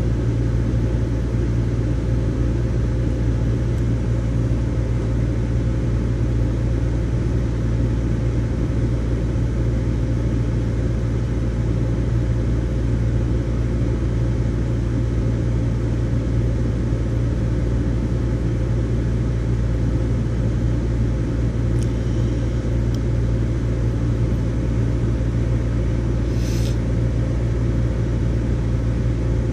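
Steady low rumble with a faint constant hum, unchanging throughout; a couple of brief faint clicks near the end.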